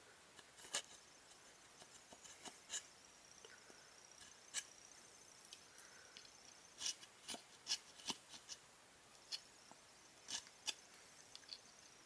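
Serrated blade of a Sheffield multi-tool sawing into a chunk of dry bark: faint, irregular scrapes and crackling clicks, more of them bunched together about seven seconds in.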